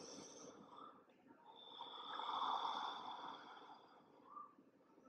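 A person's slow, audible breath, swelling and fading over about two seconds in the middle; the rest is faint.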